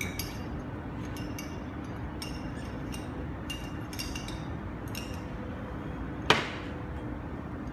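Metal fork clinking against the neck of a glass bottle while pushing burning paper down inside it: several light chinks, then one sharp, louder knock about six seconds in, over a steady low background hum.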